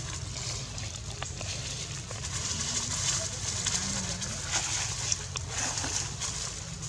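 Dry leaf litter rustling and crackling in scattered short clicks as macaques move about on it, over a steady high outdoor hiss.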